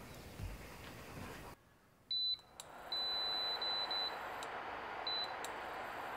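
Electric cooktop's touch controls beeping as the heat is set: one short beep about two seconds in, a longer run of beeps a second later, and one more short beep near the end. A steady hiss comes in just after the first beep.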